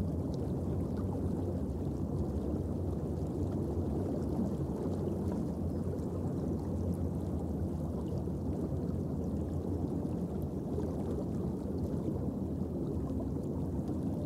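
Steady underwater ambient noise: an even low rumble and hiss with faint scattered clicks.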